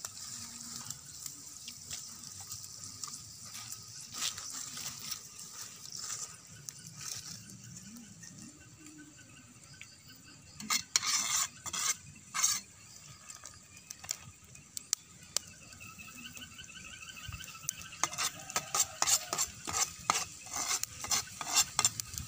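Food frying in oil in a pan with a soft sizzle, while a spatula scrapes and knocks against the pan in short bursts about eleven seconds in and then steadily from about eighteen seconds on.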